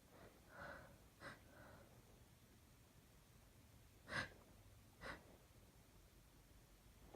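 A woman with a cold breathing faintly, with a few short, sharp intakes of breath, the clearest about four and five seconds in: the build-up before a sneeze.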